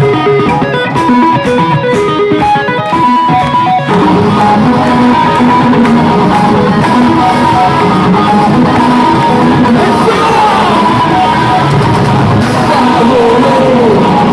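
Live progressive metalcore band playing loud through a club PA. A guitar plays a quick line of separate single notes, then about four seconds in the full band comes in.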